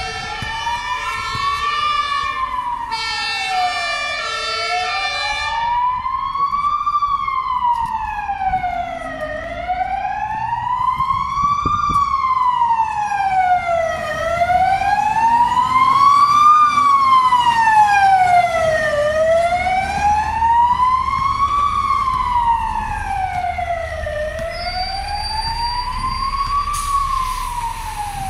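Fire ladder truck's siren in a slow wail, rising and falling about once every five seconds. For the first six seconds a horn sounds over it, pulsing rapidly near the end of that stretch. The truck's engine rumble swells as it passes.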